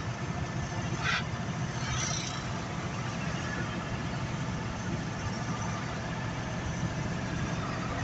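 Steady engine and road noise of a moving vehicle heard from inside the cab, a low even hum. A brief higher-pitched sound breaks in about a second in, and a fainter one about two seconds in.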